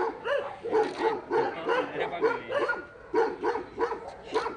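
Dogs barking repeatedly, about three barks a second without letup.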